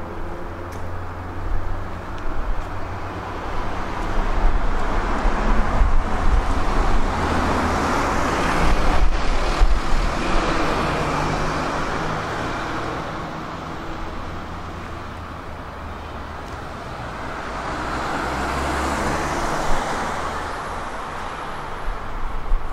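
Street traffic with cars passing, over a steady low rumble. The noise swells as vehicles go by, about a third of the way in and again near the end.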